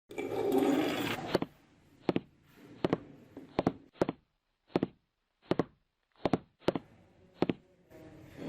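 A second or so of rough scraping noise, then a run of about ten sharp knocks from hand-tool work, roughly one every two-thirds of a second.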